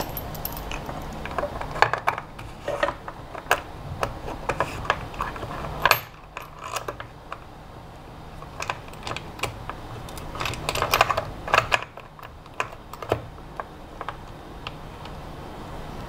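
Irregular clicks, taps and light knocks of small hold-down clamp parts and a resin block being set on the CNC engraver's aluminium T-slot bed and tightened by hand, in clusters about two and eleven seconds in.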